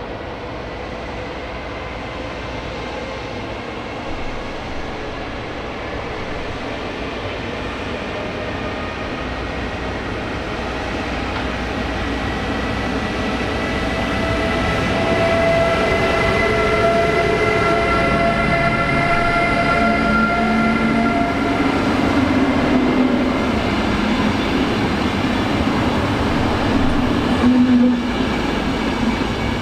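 A train approaching and running past, growing steadily louder over the first half and then holding. Several steady high-pitched tones sound for a few seconds in the middle.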